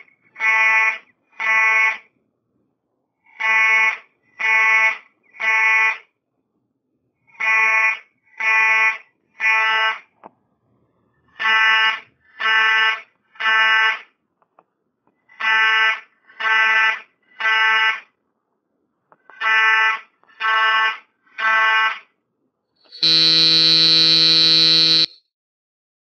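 Fire alarm sounding the three-beep evacuation pattern: three harsh buzzing beeps, a pause, and repeat, about every four seconds. Near the end a single steady buzzing tone holds for about two seconds.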